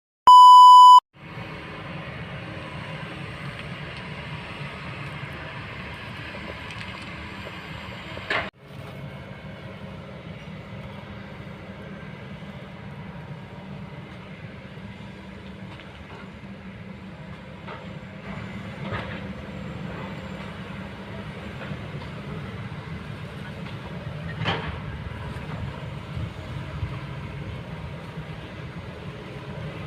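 Kobelco hydraulic excavator running at work: a steady diesel engine drone with a few sharp knocks, after a brief loud beep near the start.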